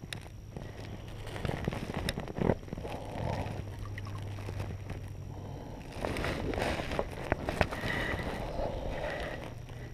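Water splashing and sloshing as a hooked largemouth bass thrashes at the surface and is lipped by hand, with several sharp knocks from handling the fish and rod.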